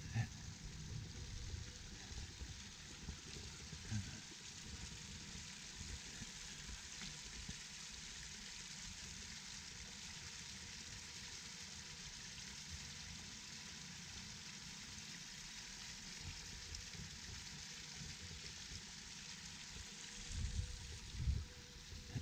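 Water trickling and splashing steadily down a small stone cascade into a pond. Low rumbles come in near the end.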